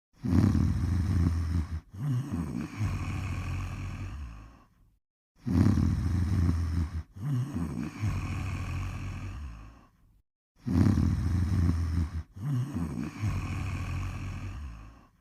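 Snoring in a slow steady rhythm: three low snores about every five seconds, each in two parts with a brief break between them and a short silent gap before the next breath.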